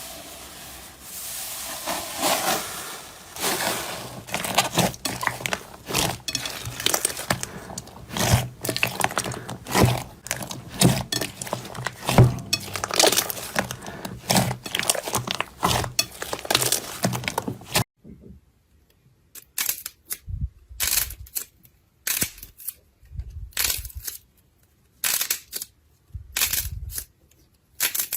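Slime being pressed and squeezed, a dense run of crackles and pops. About two-thirds of the way through it changes abruptly to separate crunches with short silences between them.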